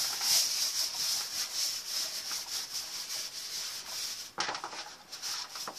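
A hand rubbing grease over a metal baking tray: quick back-and-forth rubbing strokes, greasing the tray before the dough pieces are set on it.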